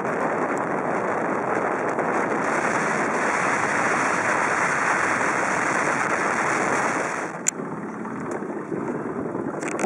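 A boat underway, with a steady rushing of its motor, water and wind on the microphone. The rushing drops noticeably a little over seven seconds in, and a single sharp click comes just after.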